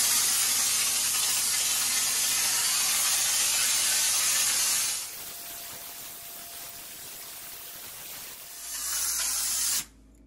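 EZ-Pro texture spray gun hissing as it sprays drywall texture from its compressed-gas tank. The hiss is strong for about five seconds, drops to a softer hiss, swells again near the end, and then cuts off suddenly.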